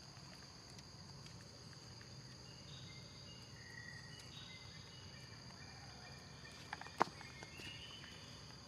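Steady high drone of insects in the forest, with a few faint short high notes in the middle and a single sharp click about seven seconds in.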